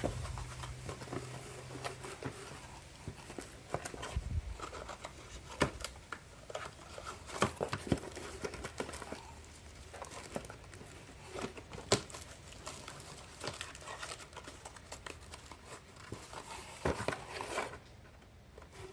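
Rummaging through a box of tube-flaring tools: crinkling packaging with scattered clicks and knocks of small metal parts.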